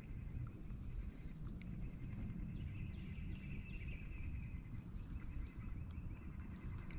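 Outdoor ambience: a low, fluctuating rumbling noise, with a faint high chirring chorus running steadily through it and a few soft clicks.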